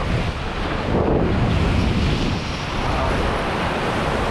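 Sea surf churning and washing, with wind buffeting the microphone as a heavy low rumble. The wash swells louder and hissier from about a second and a half in.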